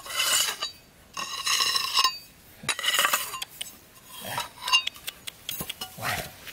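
Machete blade scraped in three long strokes across a stone slab, each stroke ringing metallically, followed by a few shorter scrapes and knocks.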